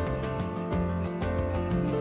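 Background music with a steady beat of about four ticks a second over a moving bass line.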